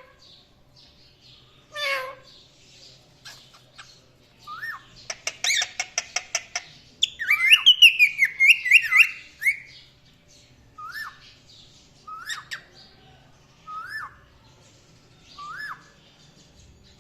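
Pet cockatiel and Indian ringneck parakeet chirping and squawking. A harsh call comes about two seconds in and a quick run of clicking notes about five seconds in. A loud burst of rapid warbling chirps follows around seven to nine seconds in, then short rising chirps every second or two.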